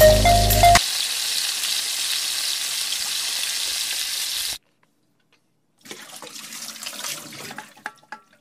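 Water poured from a bowl into a frying pan of sautéed onion and tomato, a steady splashing pour. It cuts off suddenly about four and a half seconds in, and a fainter, uneven splashing follows a second later for about two seconds.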